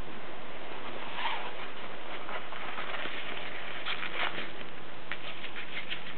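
Voss typewriter mechanism clicking and tapping lightly and irregularly over a steady hiss, with a small cluster of clicks about a second in and more from about two-thirds of the way through.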